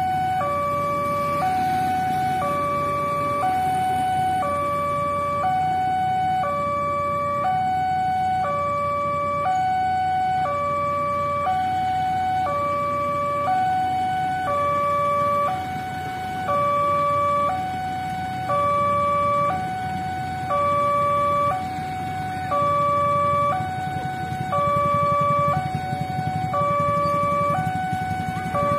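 Railway level-crossing warning alarm sounding while the crossing is closed: an electronic two-tone chime alternating a high note and a low note, repeating about every two seconds. Road traffic and waiting motorbikes rumble underneath.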